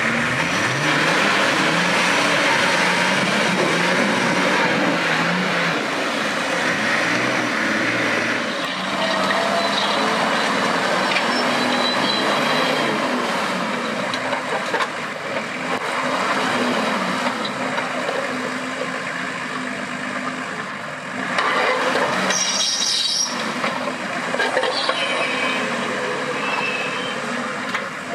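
Off-road 4x4 engine running under load, its pitch rising and falling, with a continuous noise of tyres working through rough terrain. The sound gets louder and brighter for a couple of seconds about three-quarters of the way through.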